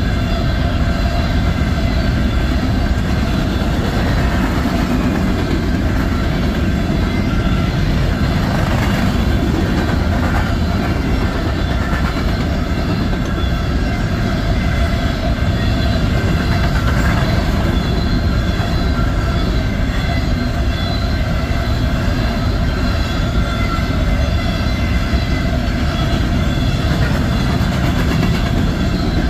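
Loaded BNSF covered hopper cars of a grain train rolling steadily past: a continuous loud rumble of wheels on rail, with a few faint steady high tones over it.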